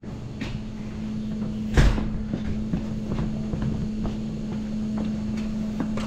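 A single heavy thump about two seconds in, over a steady low hum, with scattered light knocks and clicks.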